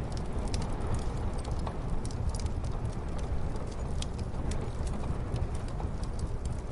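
Wood fire crackling in a fireplace, irregular sharp pops and snaps over a steady low rumble of muffled snowstorm wind.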